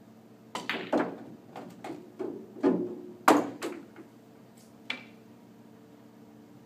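Pool balls clacking during a shot on a nine-ball table: the cue tip striking the cue ball, then the balls knocking against each other and the cushions. It is a run of sharp knocks over about three seconds, the loudest about three seconds in, and one more single knock a little later.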